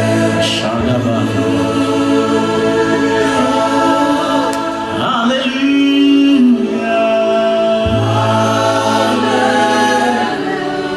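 Slow contemporary worship music: a choir singing long held notes over sustained low accompaniment.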